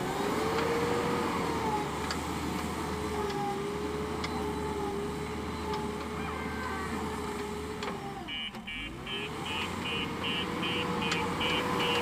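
JCB backhoe loader's diesel engine running steadily as the machine drives over sand. About eight and a half seconds in, the engine note dips and climbs again as the machine changes into reverse, and its reversing alarm starts beeping, about three beeps a second.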